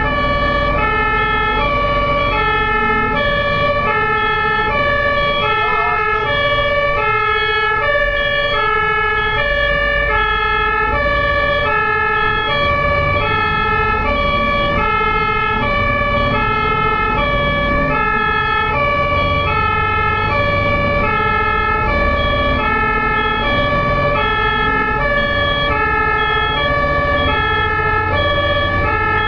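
Ambulance two-tone siren, loud and steady, alternating regularly between a high and a low note over the low rumble of vehicle and road noise.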